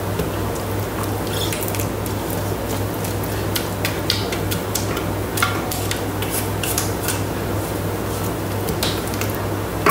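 Thermomix spatula scraping and knocking inside the stainless-steel mixing bowl as thick bolognese mince is scooped out, with wet squelches and light metallic clicks, over a steady low hum.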